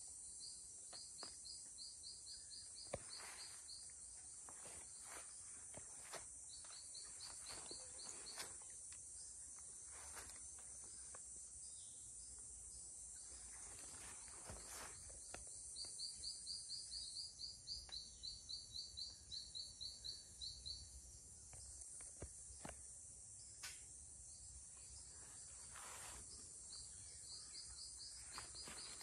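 Faint tropical forest ambience: a steady high insect drone, with four bouts of a rapid series of high chirps at about five a second, and a few brief soft rustles or taps.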